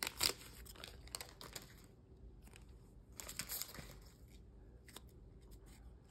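Faint crinkling and rustling from an opened Pokémon booster pack's foil wrapper and cards being handled, in a few short bursts, the loudest right at the start.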